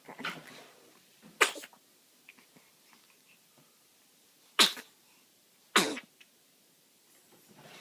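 A pet sneezing: three short, sharp sneezes about a second and a half, four and a half, and almost six seconds in, with softer snuffling sounds at the start and near the end.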